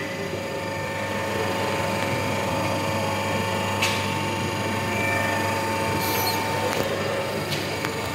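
A 0.5 HP three-phase induction motor, a Siemens 1LA7073-4AB10, running steadily with a hum and a thin whine. There are a few light clicks.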